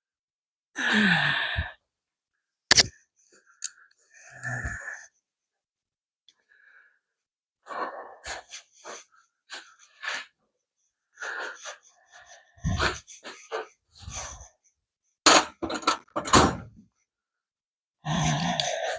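Scattered knocks, clunks and rustling of tools and shop items being picked up and put away, with a man's groan about a second in and again near the end.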